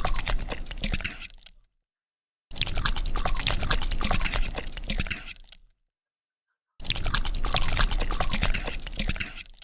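Crunchy ASMR eating sound effect from a mukbang game, a dense crackling of many small clicks, in three bursts of two to three seconds with dead silence between them.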